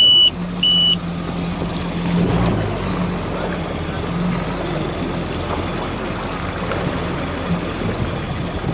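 Yamaha SVHO WaveRunner's supercharged engine idling steadily as the craft creeps along at walking pace, with water and wind noise underneath. Two short, high electronic beeps sound at the very start, the second about two-thirds of a second in.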